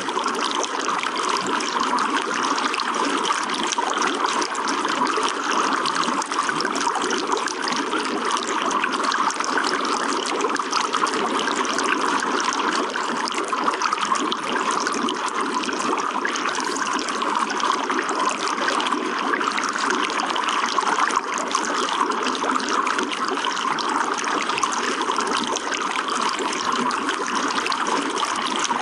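Running water trickling and splashing steadily, a continuous dense patter of small splashes that never lets up.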